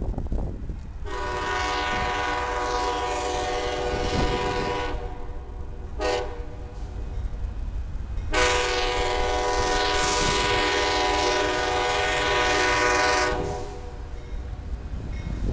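Amtrak passenger train's multi-chime air horn sounding a long blast, a short one, then another long one as the train approaches.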